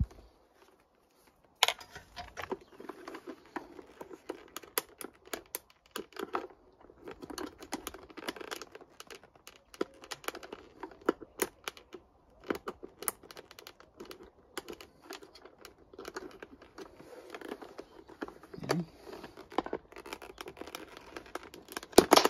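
A small screwdriver scraping and clicking irregularly against a star washer on the gas strut's pivot pin as the washer is levered off. Near the end there are a few sharp, loud clicks as the washer springs off.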